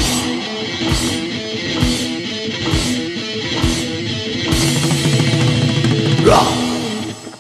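Heavy metal recording with no vocals: distorted electric guitar riff over drums, with a crash about once a second. The music dies away and stops near the end.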